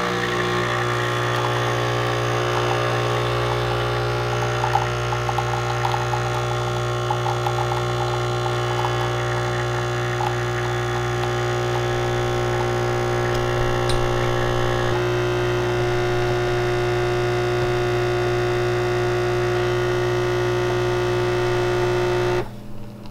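Nespresso Essenza Mini's vibratory pump running steadily with a hum while it pushes water through a capsule to brew a lungo, then cutting off suddenly near the end as the brew finishes.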